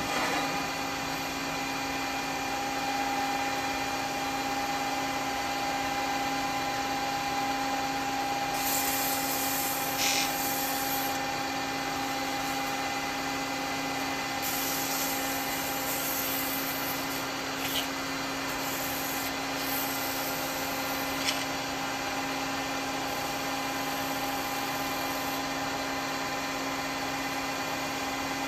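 Wood lathe running steadily with a constant motor hum, with a few short spells of hissing, scraping noise over it as the turning is worked.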